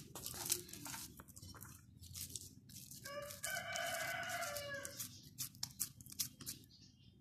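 Hands squeezing and patting soft mashed potato into a ball, giving small wet squishes and clicks. About three seconds in, a rooster crows once, for nearly two seconds.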